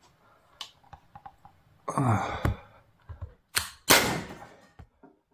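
T4E HDR 68 CO2 revolver, modified, firing a 6.6 g steel-rubber ball: a loud, sharp shot about four seconds in, just after a click, with a short decaying tail. Another burst of noise comes about two seconds in.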